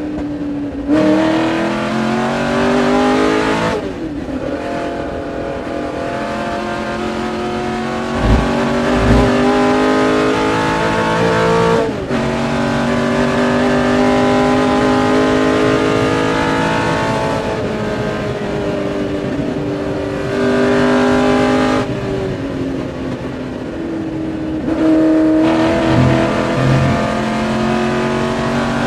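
Ford GT40's V8 engine at racing speed, heard from inside the cockpit: it revs up through the gears, its pitch dropping suddenly at each upshift. About three-quarters of the way through it eases off and gets quieter, then comes back on the throttle a few seconds later.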